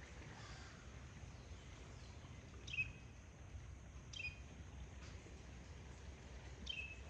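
A bird calling: three short chirps, each dropping quickly in pitch, spaced about two seconds apart, over a low steady rumble.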